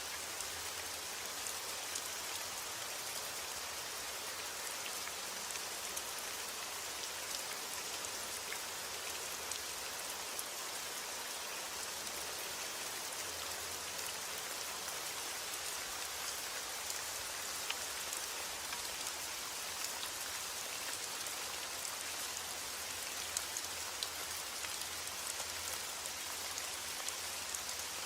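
Heavy rain falling steadily on a forest: a dense, even hiss with scattered sharp drop ticks.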